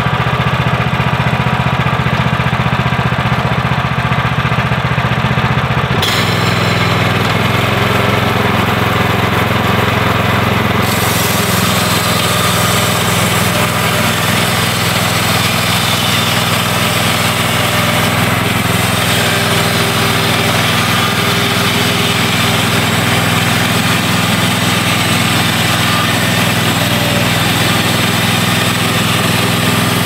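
Woodland Mills HM126 bandsaw sawmill running, its gas engine at steady speed while the band blade saws through a log. A higher hiss comes in about six seconds in and grows louder near eleven seconds.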